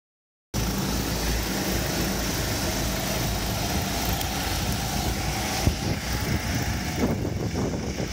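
Engines of a pack of karts running past together: a steady drone with a hiss over it, fading from about seven seconds in as the karts move away.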